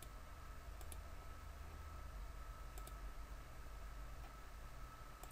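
A few faint computer mouse clicks, a second or two apart, over a low steady background hum.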